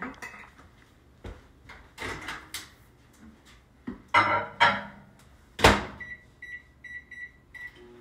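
Knocking and clatter, then a sharp bang a little before the beeps, then about five short high beeps from a built-in microwave oven's keypad as the cooking time is entered.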